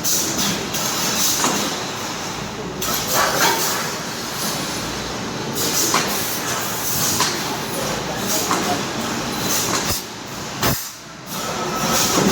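Spot-welding machinery at work: a continuous clattering, hissing industrial noise broken by repeated sharp bursts every second or two.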